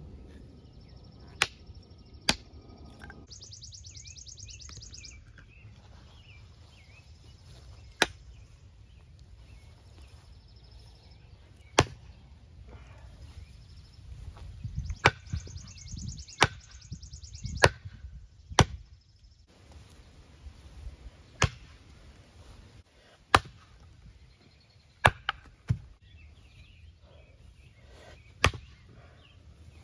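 A Cold Steel Frontier Hawk tomahawk chopping into a wooden log: about a dozen sharp blows at uneven spacing, several coming in quick succession about halfway through.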